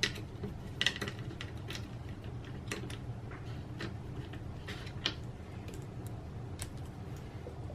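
Scattered light metallic clicks and clinks, one every second or so, as small screws and a metal crossbar are handled and lifted out by hand, over a steady low hum.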